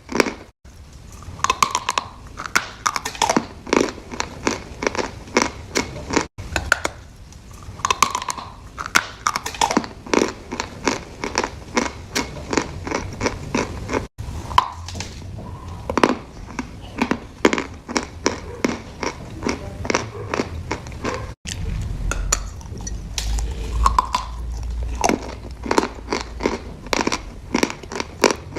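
Crunchy food being bitten and chewed close to the microphone: a dense run of sharp crunches, about two to three a second. The sound cuts out completely for an instant a few times.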